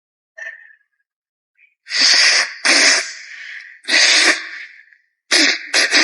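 A woman forcefully blowing her nose: a short sniff, then about five loud, hard blasts of air through the nose from about two seconds in, clearing mucus.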